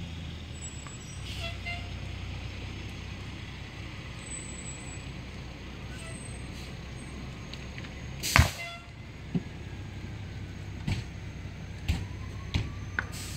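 Burning car popping over a steady low rumble: one loud sharp bang about eight seconds in, then several smaller pops. A siren faintly starts to rise near the end.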